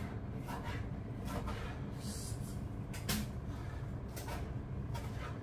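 Kitchen knife slicing tomatoes on a cutting board: short, irregular knocks of the blade striking the board, over a steady low hum.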